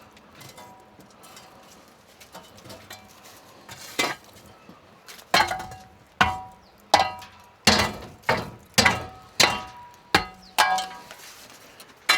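A metal utensil knocking against a ringing metal container: a few faint clinks, then about ten sharp strikes starting about four seconds in, under a second apart, each leaving a short metallic ring.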